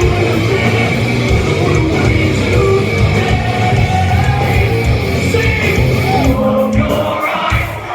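A heavy metal band playing live, with distorted guitars, bass, drums and sung and shouted vocals, recorded in a large hall. About six seconds in the bass and drums drop out briefly, then the full band comes back in at the end.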